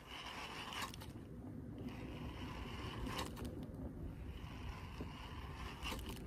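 Fishing kayak on open water: wind on the microphone and a steady low rumble, with a soft scraping swish that comes and goes about every two seconds and a few light clicks.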